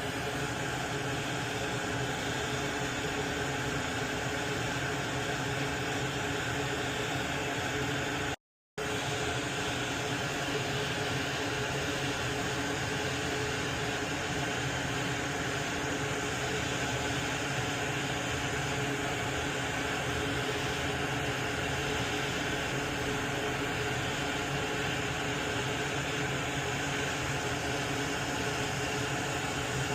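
Steady hiss and hum of a small fan-driven blower running without change. It cuts out for a split second about eight and a half seconds in.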